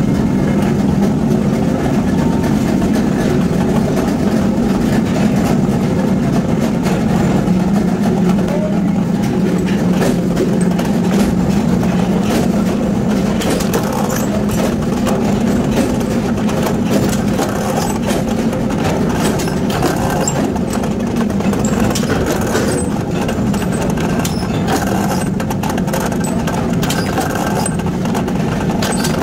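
Forging-shop machinery running steadily: a constant low motor drone with a few faint light clicks on top.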